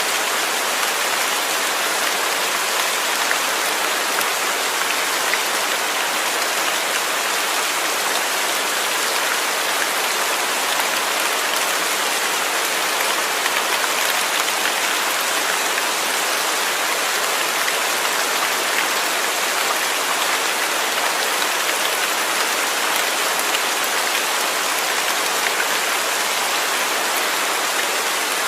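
Steady rain falling, a dense even hiss of drops with fine pattering on a surface.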